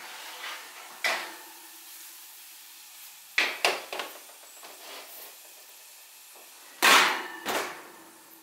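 A metal sheet pan being handled at a gas stove, with several sharp clanks and knocks. The loudest is a pair of clanks about seven seconds in, as the pan is set down on the cast-iron grates.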